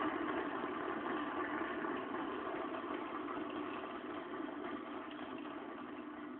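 Audience applauding, a steady wash of clapping that slowly dies away.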